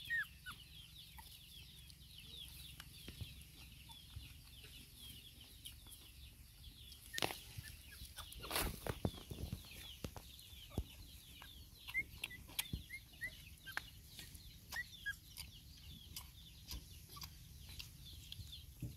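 Chickens clucking faintly, with many short high chirps throughout. A couple of brief knocks or rustles come a little past seven and around nine seconds in.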